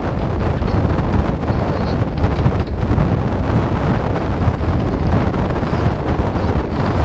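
Strong wind buffeting the microphone on a sailing yacht at sea, a steady low rumble with the rush of water beneath it.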